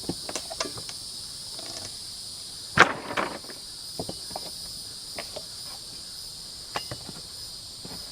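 Wooden pallet being pried apart with a steel pallet-dismantling tool: scattered knocks and one loud sharp crack with a short clatter about three seconds in, as a nailed board comes loose. Steady high chirring of insects underneath.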